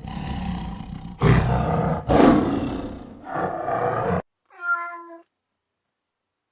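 A big cat roaring, about four loud, rough roars in a row, followed a little later by a short cat meow.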